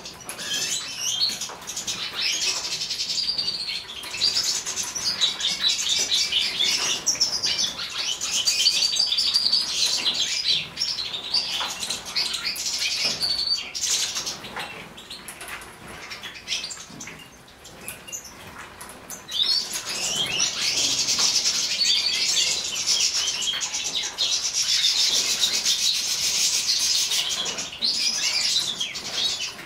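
A flock of caged Siberian goldfinches twittering and singing all together, with wings fluttering. The chatter thins out for a few seconds past the middle, then picks up again.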